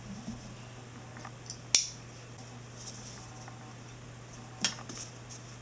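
A utility knife cutting an EVA foam floor mat: a few short scraping strokes and two sharp clicks, one about two seconds in and one near the end.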